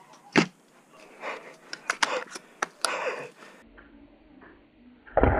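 A sharp click about half a second in and scattered clicks and knocks of rifle handling. Near the end comes one loud thump with a deep low end: a shot from a Silverback SRS bolt-action airsoft sniper rifle.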